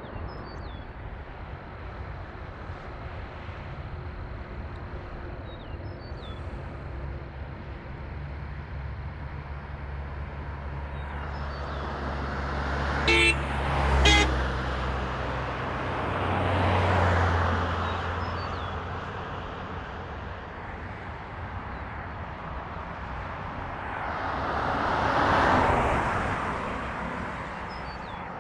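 Road traffic going past: a vehicle's engine draws near and it sounds its horn twice in quick succession midway through, then cars pass by one after another, the tyre and engine noise swelling and fading, the last one near the end.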